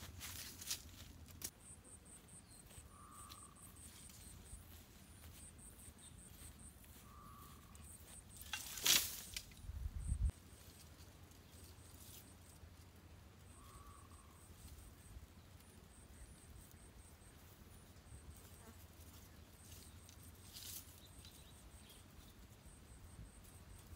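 Insects chirping faintly in short, very high trains that repeat through the quiet outdoor air, with three faint short notes in between. About nine seconds in, a brief loud crackle of dry branches being handled stands out, followed by a low thud.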